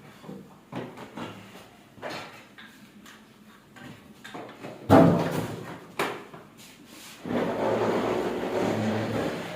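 Knocks and clatter of hard objects being handled, the loudest a sharp knock about five seconds in, followed by a rough rasping noise lasting about two seconds near the end.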